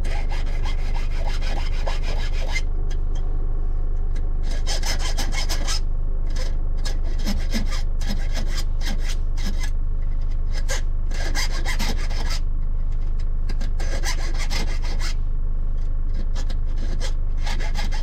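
Hand file rasping back and forth across a freshly cut brass key clamped in a vise, squaring off and deburring the cuts. The strokes come in runs of several quick passes with short gaps, over a steady low hum.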